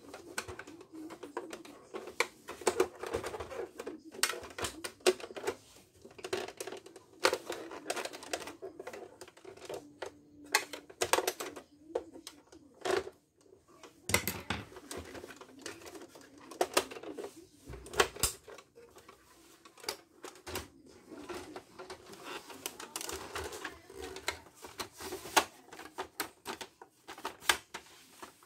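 Irregular clicking and clattering of the plastic housing of an Epson L361 inkjet printer as its snap-fit locks are pried open with a screwdriver and the casing is handled, with a few duller knocks.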